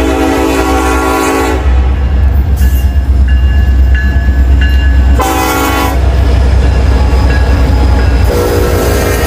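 Union Pacific freight train's diesel locomotives running with a deep steady rumble while the air horn sounds: a horn blast that breaks off about a second and a half in, a short blast around five seconds, and the horn sounding again near the end.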